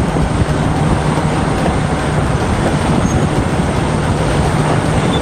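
Large Caterpillar crawler bulldozer's diesel engine running under load as it pushes a pile of dirt, a steady loud drone with track and machinery noise.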